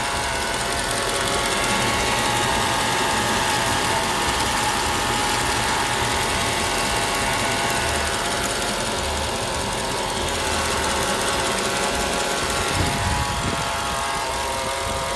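Mercedes-Benz E55 AMG 5.4-litre V8 running at a steady idle with a constant whine over the engine note. The owner doesn't know its cause and wonders whether it is the harmonic balancer.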